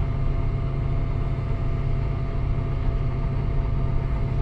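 Volvo excavator's diesel engine idling steadily, heard from inside the cab: an even low rumble with a faint, constant whine above it.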